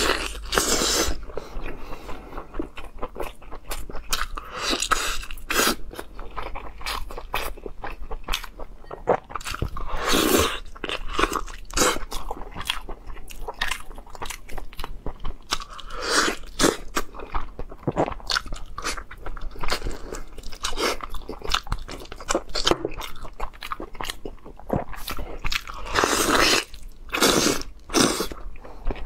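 A man chewing and biting meat off a stewed lamb leg bone, close to the microphone: rapid, irregular mouth clicks and crunching bites, with several longer, louder noisy stretches.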